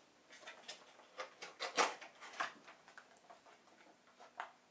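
Cardboard box handled and its lid opened: scattered light scrapes, taps and rustles of cardboard, the loudest about two seconds in.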